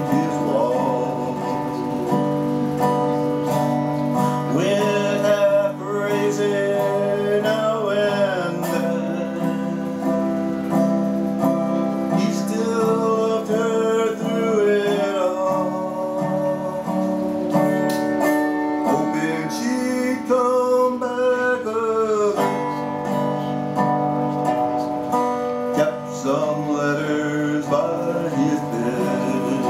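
Slow country ballad on guitar: held chords and notes that slide up and down in pitch at the ends of phrases.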